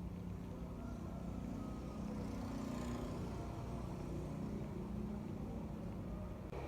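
A motor vehicle running: a steady low engine hum that swells slightly around the middle.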